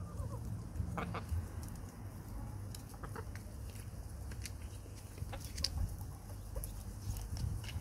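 Backyard hens clucking as they forage, with short sharp clucks and clicks scattered through, over a steady low rumble.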